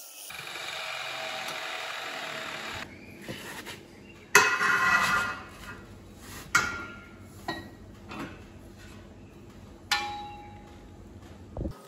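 Abrasive cut-off saw running steadily for the first couple of seconds, then a steel pipe knocking against a steel frame several times, each knock ringing out; the loudest clang comes about four seconds in.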